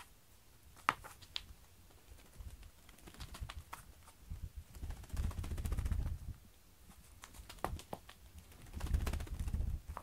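Light clicks and rustles of a feather cat-teaser toy being flicked and dragged across a foam floor mat, with two longer spells of low rumbling about halfway through and near the end.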